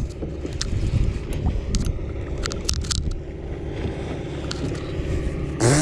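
Steady low wind and water noise around a kayak, with irregular sharp clicks and rattles as a spinning reel is wound and the rod handled. A short grunt right at the end.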